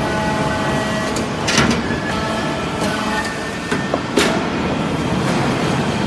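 Hydraulic briquetting press for metal shavings running with a steady mechanical hum, broken by several sharp metallic knocks, the loudest about a second and a half in and about four seconds in.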